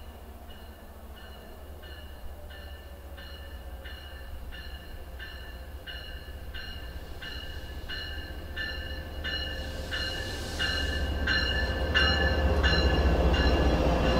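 MBTA commuter train arriving: the diesel locomotive's bell rings steadily about twice a second while the rumble of engine and wheels grows louder as the train pulls into the platform, loudest near the end as the coaches roll past.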